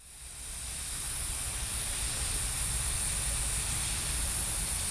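Sentinel steam locomotive hissing steadily with escaping steam, with a low rumble underneath; the sound fades in over about the first second.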